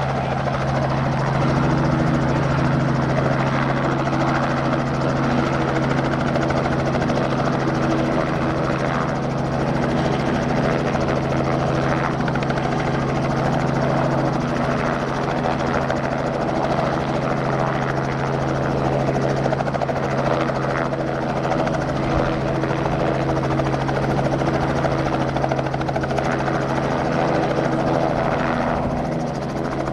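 A Robinson light helicopter hovering low just above the ground: a steady, unbroken rotor and engine drone with an even hum, easing slightly near the end.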